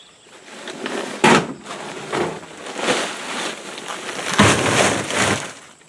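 Plastic bag of drainage rock being handled: the bag rustles and the stones inside crunch and shift, with two heavier crunching thuds, about a second in and again near the end.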